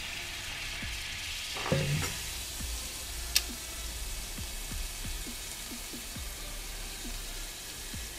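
Liquid nitrogen poured from a steel flask into a glass bowl, hissing and sizzling as it boils off around the parts being chilled to shrink them for a press fit. The hiss fades after about two seconds into a run of small pops, with one sharp click about three and a half seconds in.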